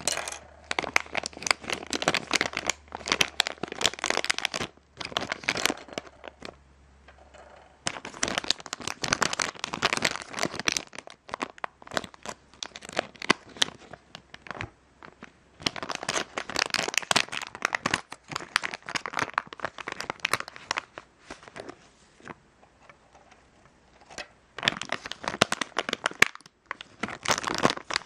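Crinkling of a plastic-foil LEGO minifigure blind bag being handled and rummaged through, in bursts of a few seconds with short pauses between.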